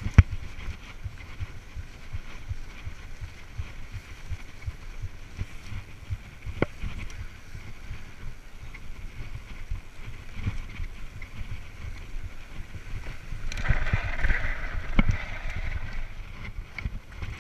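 Mountain bike running fast over a dry dirt singletrack: wind buffeting the camera microphone over a steady rumble and rattle of the bike, with a sharp knock just at the start and another a few seconds in. Near the end a louder hissing stretch as the bike slows to a stop.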